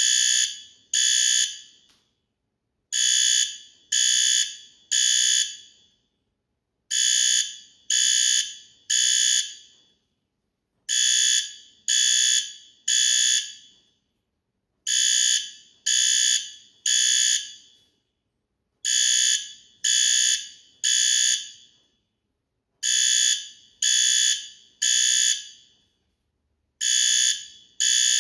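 Fire alarm sounding in the temporal-three evacuation pattern: three high beeps about a second apart, then a pause, repeating every four seconds. This is the standard signal to evacuate.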